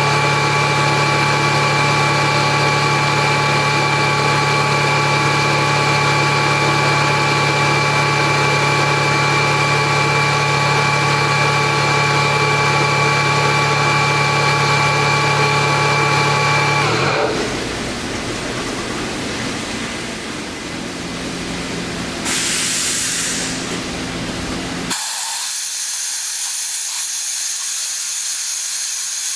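Atlas Copco GX7FF rotary screw air compressor running steadily with a hum and several steady whining tones. A bit over halfway through, the tones stop and the sound turns to a rougher rush of air. A louder burst of hiss comes near the end, and after it only a high hiss of escaping air remains.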